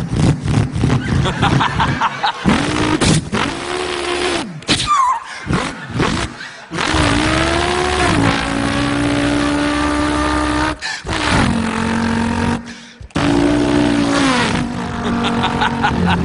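A man imitating a revving car engine with his voice: the pitch climbs and drops through gear-change-like breaks, with longer held notes in the second half. The imitation stops near the end.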